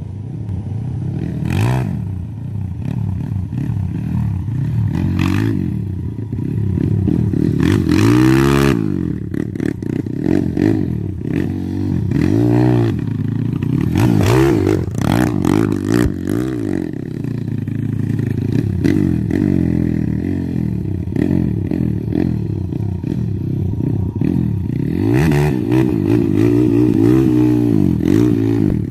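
Honda CRF150L dirt bike bored up to 266 cc with a BRT engine kit, its single-cylinder four-stroke engine revving hard and easing off again and again as it rides around and wheelies.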